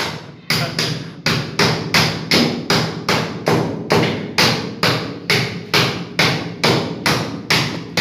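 A hammer striking a round sheet-metal duct connector in a steady run of sharp blows, about three a second, tapping the connector into place on the duct collar.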